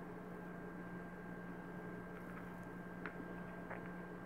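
Low, steady electrical hum, with two faint light clicks a little after three seconds in.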